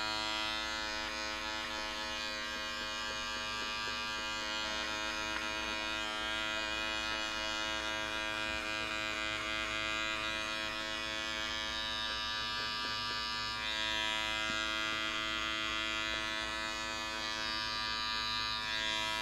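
Corded electric hair clipper fitted with a 1.5 guard, running with a steady buzz as it cuts short hair on the side of the head.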